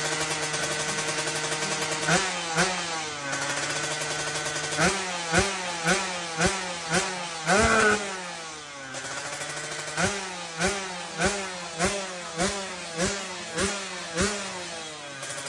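A drag-racing motorcycle engine running steadily, then revved in a long run of sharp throttle blips, about two a second, each rev falling back at once, with a short lull midway.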